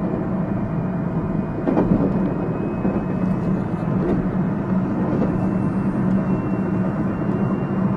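Running sound inside a JR Central 373 series electric train, set F2, under way: a steady low rumble of wheels on rail, with a few sharp knocks about two and four seconds in, typical of rail joints. A faint thin high tone comes in from about halfway through.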